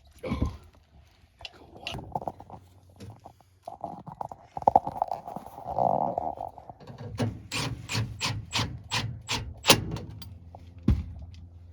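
Metal gas pipe fittings and tools being handled while the pipe is turned: a thunk, a scraping squeal partway through, then a run of sharp clicks about three a second, and another thump near the end.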